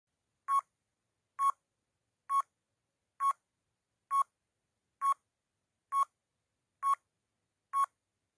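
Countdown timer sound effect: nine short electronic beeps, about one a second, ticking off the seconds of a countdown.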